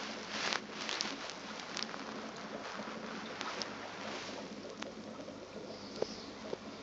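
Aquarium water running and bubbling: a steady watery hiss with scattered small clicks and ticks over a faint low hum.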